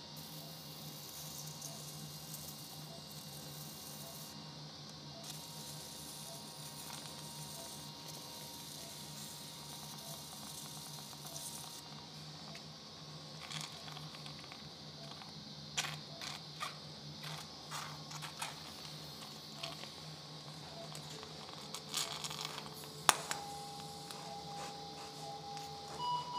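Operating-room background: a steady low hum and hiss, with a faint beep about once a second. In the second half, sharp clicks of surgical instruments, and near the end steady electronic tones from an electrosurgical unit as a sealing handpiece is fired on a vessel.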